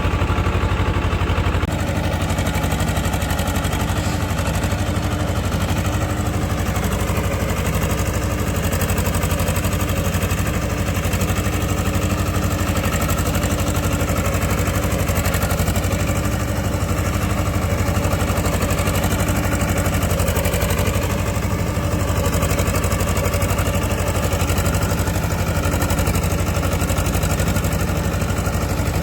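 Swaraj tractor's diesel engine running at a steady speed with a constant low note. Its level dips slightly about two seconds in.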